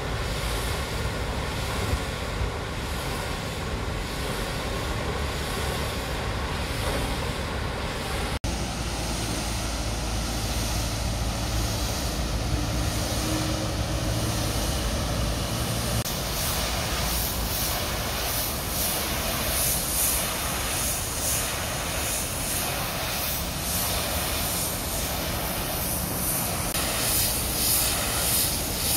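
Steady rumble of shipyard machinery in a dry dock. Past the halfway point a high-pressure water jet washing the ship's hull joins it as a pulsing hiss.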